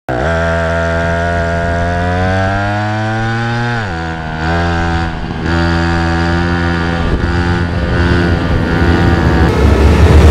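A small motor revving hard: its pitch climbs steadily for about four seconds, drops sharply, then holds fairly steady with a few short dips and turns rougher near the end.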